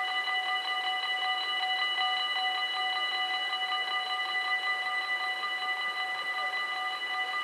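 Dutch level-crossing warning bell ringing in a rapid, even run of strikes on one ringing note.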